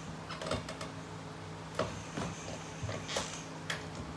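Tarot deck being worked by hand to pull out a card: several irregular light clicks and snaps of cards against each other.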